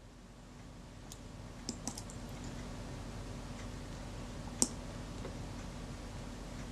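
A few light, scattered clicks and taps of small metal camera parts being handled as the shutter release is refitted to a Kodak Retina IIa, the sharpest click about four and a half seconds in, over a faint steady hum.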